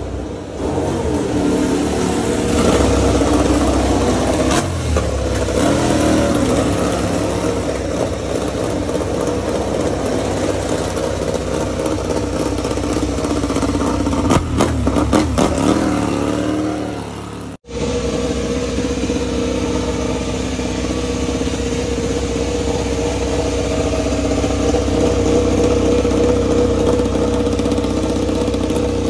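Ducati Desmosedici MotoGP bike's V4 engine running on its stand in the pit box, revs rising and falling over a high idle. After an abrupt cut about two-thirds of the way through, a second Desmosedici's engine runs at a steadier, even pitch.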